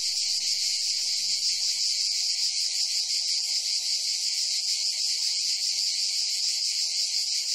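Insects in a steady, dense, high-pitched chorus.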